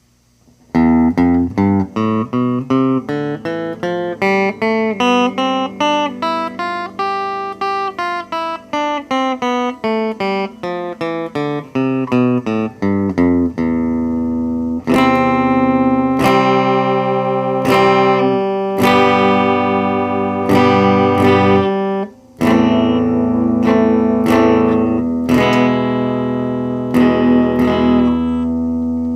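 Epiphone electric guitar played clean through a small Cort combo amp. It starts with fast picked single notes that climb and fall in pitch, then about halfway through switches to strummed chords, which break off briefly near the end before resuming.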